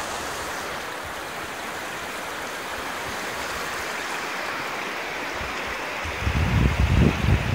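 Shallow, fast river water rushing steadily over rounded cobbles and stones. From about six seconds in, irregular low rumbling buffets hit the microphone and are the loudest part.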